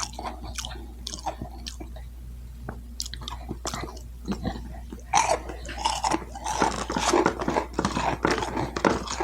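A person chewing and biting food close to the microphone: wet mouth clicks and smacks, sparse at first and busier and louder from about halfway through.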